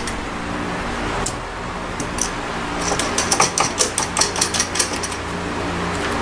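Hand tools clicking and clinking on metal during a suspension job, with a quick rattling run of clicks in the middle, over a steady fan hum.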